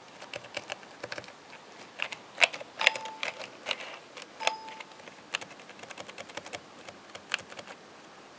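Keys of an MSI CX640 laptop keyboard being pressed one at a time by a finger: irregular light clicks, sometimes in quick runs, stopping shortly before the end. Two brief faint tones sound between the clicks a few seconds in.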